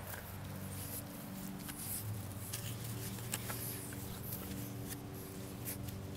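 Faint, irregular crackling and rustling of dry leaves and twigs, with a steady low hum underneath.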